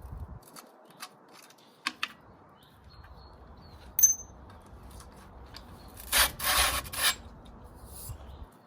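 Bicycle quick-release seat clamp and seat post being worked: a few light clicks, one sharp metallic click about four seconds in, then about a second of scraping as the seat post is pulled out of the frame's seat tube.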